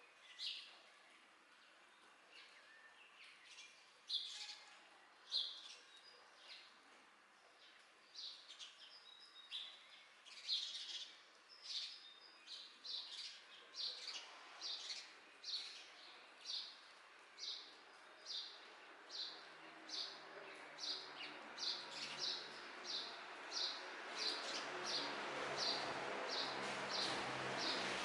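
A bird calling with short high chirps: scattered at first, then a steady run of about one and a half calls a second that grows louder. Near the end a rising hiss and a low hum come in underneath.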